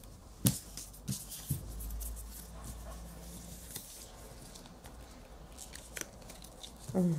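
Puzzle pieces handled and pressed together on a tabletop: a few scattered soft taps and clicks with light rustling, the sharpest about half a second in.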